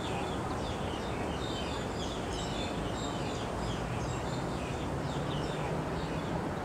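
Many short, high chirps from small songbirds, dense and overlapping, over steady background noise.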